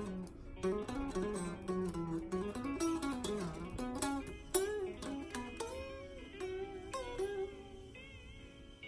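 Electric guitar playing a single-note lead line, with several notes bent up and back down. The last note fades away near the end.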